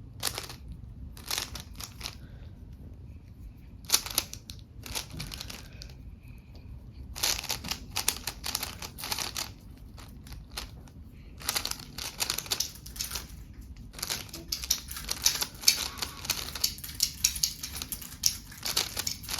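Plastic Rubik's Cube layers being turned by hand, clicking and clattering in quick bursts of rapid turns with short pauses between them. The turning grows denser and more continuous in the second half.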